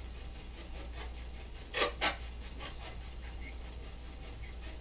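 Steady low hum, broken about two seconds in by two short noisy bursts in quick succession.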